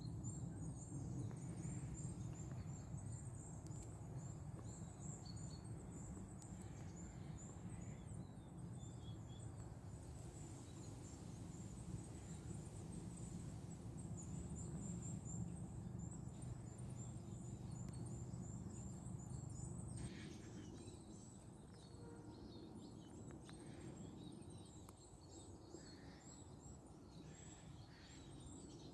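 Small forest birds singing in many short, high-pitched chirps, over a low steady rumble that fades about two-thirds of the way through.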